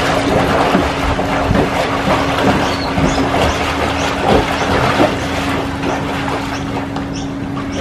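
A swimmer doing front crawl in a swimming pool, arm strokes and kicks splashing the water continuously. A steady low hum runs underneath.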